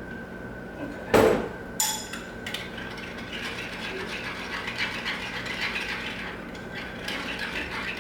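A spoon knocking and clinking against a bowl, then rapid scraping and clicking for several seconds as the spoon works through the dipping sauce.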